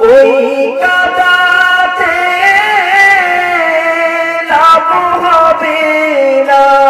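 A man singing a Bengali Islamic song (gojol) into a microphone, holding long drawn-out notes with wavering turns in pitch and a step down in pitch about two-thirds of the way through.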